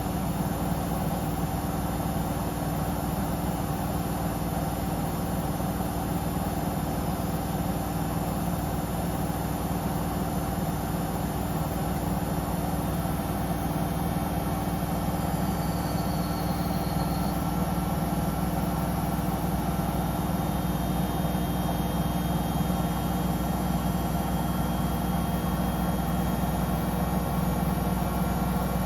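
Samsung Eco Bubble washing machine spinning its drum at a steady speed: a steady mechanical hum from the drum and inverter motor, with several constant tones, growing slightly louder about halfway through.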